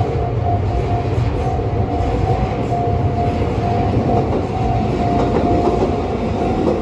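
Japanese railway level-crossing alarm ringing its repeated single-pitch ding while an electric commuter train rumbles through the crossing.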